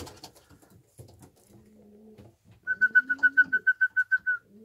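Domestic pigeons cooing, several low coos of about a second each. In the middle comes a quick run of about a dozen short, high, evenly spaced chirps, the loudest sound.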